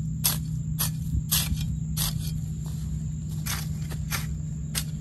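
A hoe's metal blade scraping and chopping dry soil in several short, irregular strokes, working soil in around the base of a young custard apple tree. A steady low hum runs underneath.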